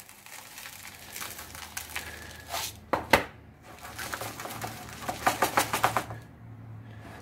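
Coarse salt poured from a bowl over chicken pieces in a small plastic container, a gritty hissing trickle, followed by a single sharp knock about three seconds in. Near the end comes a quick run of crunching scrapes, about eight a second, as the salt is pressed and spread over the chicken by hand.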